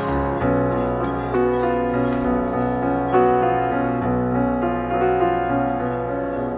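Instrumental background music, with held chords changing about once a second.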